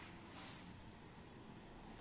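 Near silence: room tone, with a faint swish about half a second in.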